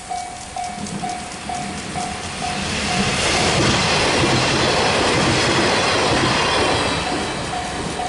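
Level-crossing bell dinging steadily about twice a second while a red train comes up and passes close by. The rumble and clatter of its wheels on the rails swells about three seconds in and drowns the bell, which is heard again near the end as the train noise dies away.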